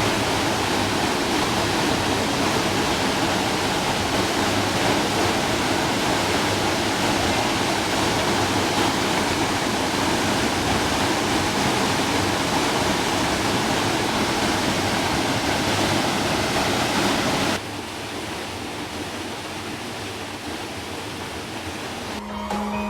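Waterfall pouring into a pool, a steady loud rush of falling water. About three-quarters of the way through it drops abruptly to a quieter, more distant rush.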